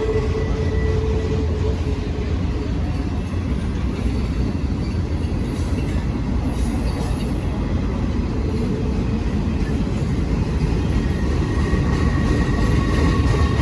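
BNSF train rolling past with a steady rumble of wheels on rail. Faint high steady tones, squealing from the wheels, sound at the start and again in the last few seconds.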